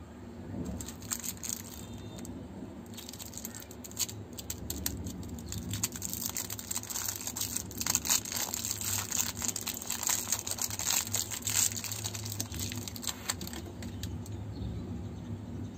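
Plastic lollipop wrapper crinkling and crackling as fingers twist it and peel it off a Bon Bon Bum lollipop, in a dense run of small crackles that thins out near the end.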